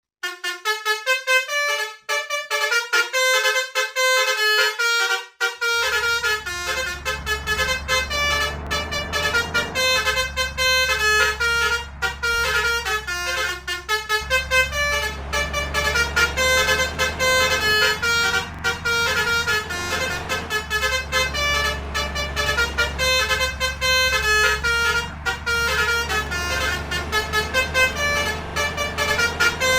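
Bus's basuri 'telolet' horn, a multi-tone air horn, playing a fast melody of short notes. From about six seconds in, a low engine drone runs underneath.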